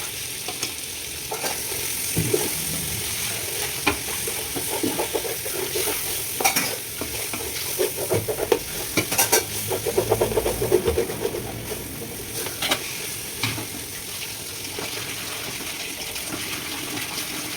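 Chopped tomatoes frying in a spiced onion masala in a biryani pot, with a steady sizzle while a spoon stirs and scrapes against the pot. The knocks and scrapes come thickest about eight to eleven seconds in.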